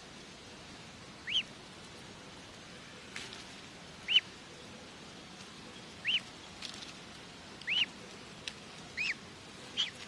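Goslings peeping: six short, high chirps that rise and fall, spaced a second or two apart, over a faint steady hiss.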